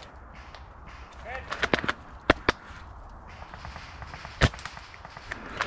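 Airsoft guns firing: sharp cracks, a quick cluster about one and a half seconds in, two louder single shots soon after, and another single shot a little past four seconds.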